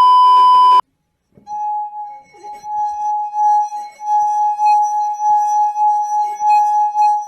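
A loud, short electronic beep lasting under a second. After a brief gap comes one long, steady high tone with overtones that swells and dips in loudness for about six seconds.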